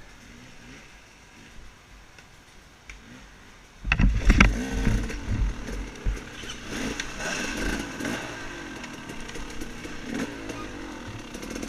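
Off-road motorcycle engine, faint at first, then revved up loudly about four seconds in and kept running with rising and falling revs.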